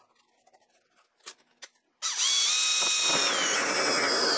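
Two faint clicks, then, about two seconds in, a cordless drill spinning a step drill bit in the antenna hole of a car's painted body panel. Its whine drops lower in pitch partway through.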